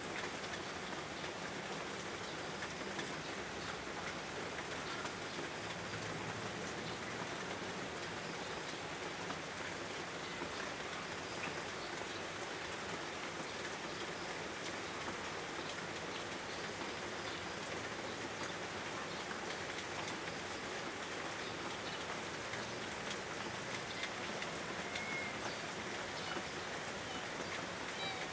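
Steady, continuous rain falling, a constant hiss with many small drop ticks scattered through it.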